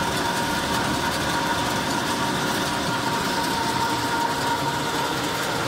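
Coffee fruit peeling machines and a vibrating mesh screen running together: a steady, even mechanical noise with a constant high hum through it.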